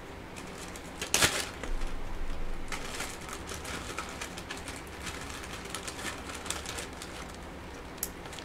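Clear plastic zip-top bag rustling and crinkling with small clicks as modelling clay is packed into it and sealed, with a sharper rustle about a second in.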